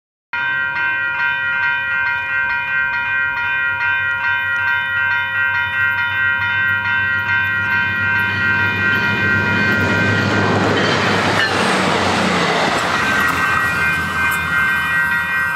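Railroad grade-crossing warning bells ringing steadily in rapid, even strokes. About eight seconds in, the rushing rumble of a passing train swells over them and fades again a few seconds later.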